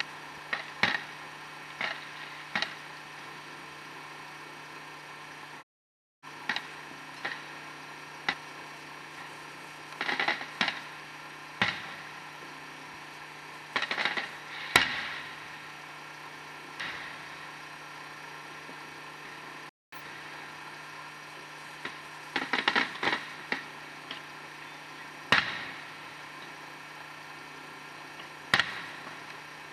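Fireworks popping and crackling: single sharp cracks and quick rapid-fire clusters of pops every few seconds, over a steady low hum.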